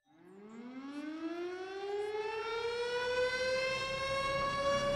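A siren winding up: one rich tone whose pitch climbs quickly at first and then levels off, growing steadily louder.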